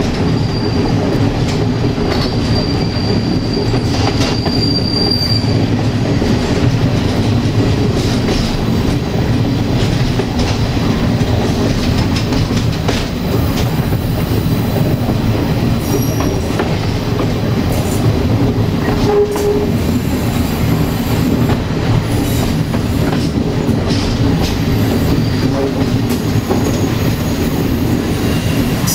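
Railway carriage running along the track: a steady rumble of wheels on rail, with brief thin squeals of wheel flanges against the rail now and then and a few rail-joint clicks.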